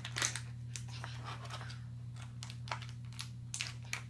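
Clear plastic packaging and small plastic toys being handled on a tabletop: irregular light clicks, taps and crackles, over a steady low hum.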